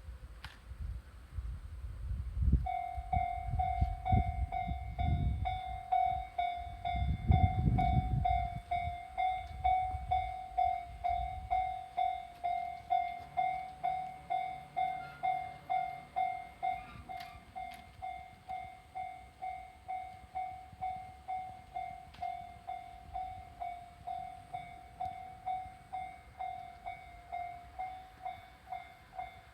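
Japanese railway level-crossing alarm starting up a few seconds in: an electronic ding that repeats steadily about one and a half times a second, the signal that a train is approaching. A low rumble sits under it for the first several seconds.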